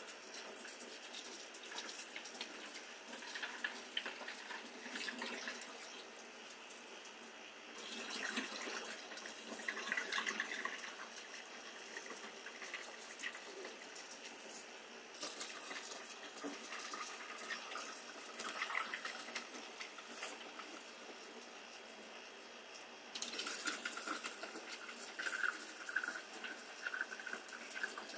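Distilled spirit poured from glass gallon jugs into a stainless steel still boiler: a quiet, steady splashing of liquid into the pot.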